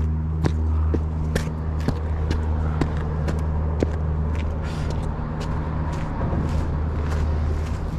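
Footsteps on rock and gravel, about two steps a second, with a steady low rumble underneath.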